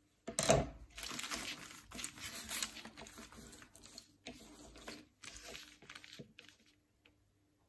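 Clear plastic paintbrush packaging crinkling and rustling as it is handled and laid out, in uneven bursts, the loudest right at the start, then dying away about a second before the end.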